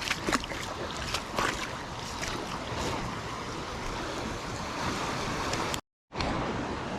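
River water rushing and splashing around people wading through shallow rapids, with a few sharper splashes. The sound cuts out for a moment near the end.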